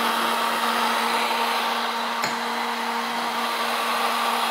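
Countertop blender running steadily at full speed, its motor holding a constant hum as it churns a liquid drink in the plastic jar. A single brief click sounds about halfway through.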